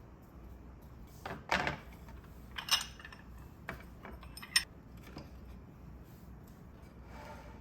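A few light knocks and clinks of small hard objects being handled, five or so separate strikes spread over several seconds.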